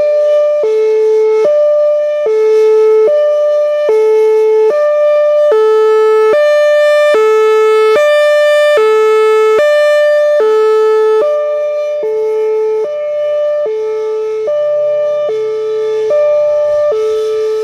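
Whelen Vortex R4 electronic warning siren sounding its Hi-Lo tone: two pitches taking turns, each held for a little under a second. It swells louder and brighter in the middle and eases off again as the rotating head turns toward and away from the listener.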